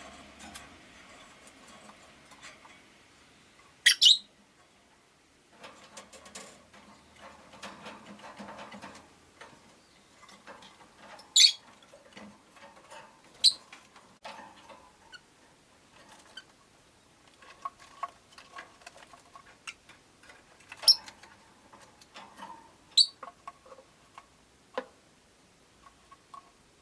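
Rosy-faced lovebirds giving sharp, high-pitched single chirps every few seconds, about five loud ones in all, with soft rustling and quieter twittering from the cage in between.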